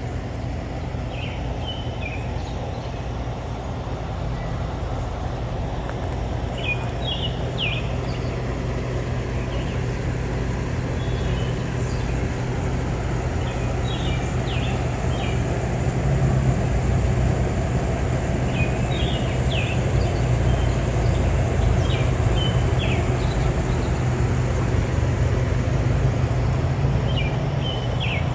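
A steady engine-like drone that grows a little louder about halfway through, with short bird chirps now and then.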